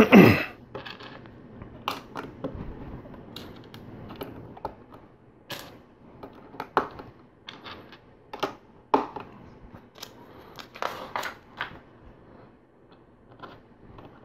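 LEGO bricks being pressed together and handled: irregular plastic clicks and taps, a dozen or so spread unevenly, as pieces snap onto a wall section.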